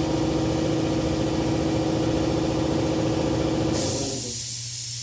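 Air compressor running steadily with a fast pulsing, which cuts off about four seconds in; at the same moment a steady hiss of escaping air begins.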